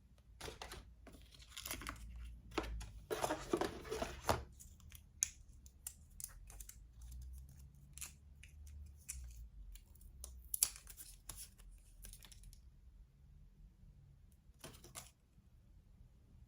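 Packaging being torn open and handled: irregular tearing and crinkling rustles, loudest a few seconds in, thinning out after about twelve seconds, with one more short rustle near the end.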